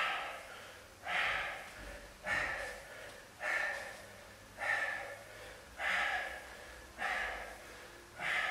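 A man breathing hard and sharply with each frog-squat rep, one forceful breath about every second, eight in a row.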